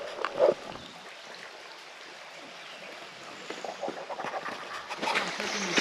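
Creek water running steadily, with a brief loud sound about half a second in and splashing that grows toward the end.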